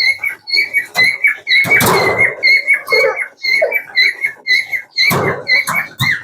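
Parrot repeating a short, high chirp about three times a second, with a few knocks and rustles from the cage fittings, the loudest about two seconds in and again near five seconds.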